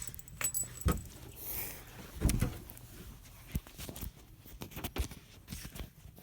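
Light jingling and clinking with scattered clicks and knocks, and one louder thump a little over two seconds in.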